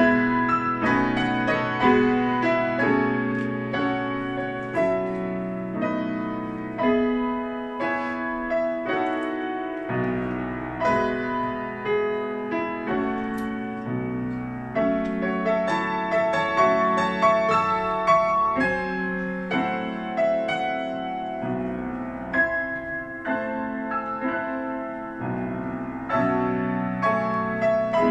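Grand piano played four-hands by two players: a classical piece of flowing chords and melody notes, the bass dropping out for a few seconds about seven seconds in.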